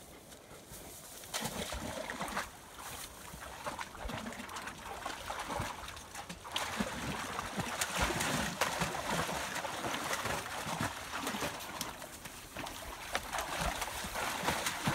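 Dogs splashing about in a shallow rocky creek, with irregular splashes and sloshing water starting about a second in.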